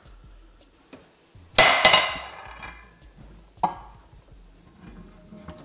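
Metal frying pans being handled and set down on a countertop. About a second and a half in there is a loud ringing clank, double-struck, that fades over about a second. A lighter knock follows about two seconds later.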